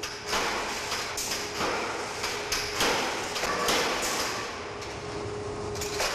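Forging presses striking red-hot steel in a forge shop: a run of irregular heavy metallic bangs and clanks over a steady machinery hum.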